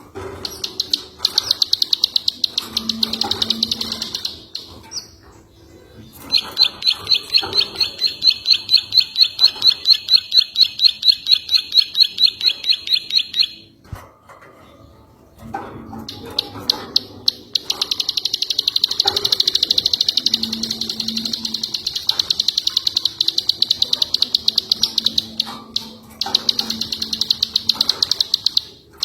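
Recorded song of the ciwah songbird: long runs of rapid, repeated high notes, with short breaks about five and fourteen seconds in.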